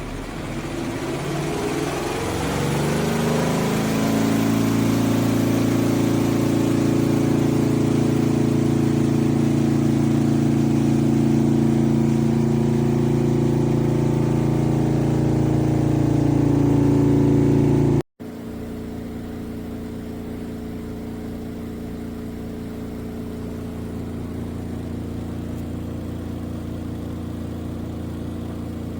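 A twin-tub portable washing machine's motor starting and spinning up, its hum rising in pitch over about four seconds, then running steadily. After a sudden cut about two-thirds of the way through, a quieter steady hum.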